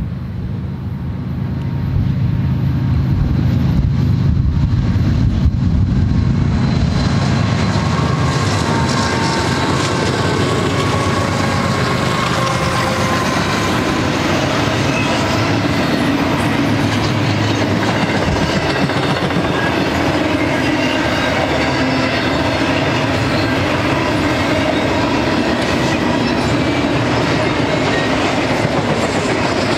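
BNSF GE ES44C4 diesel locomotives passing close, a deep engine drone that grows louder over the first two seconds. From about seven seconds in, the double-stack intermodal well cars roll by in a steady rumble and clatter of wheels on rail, with a few thin high tones over it.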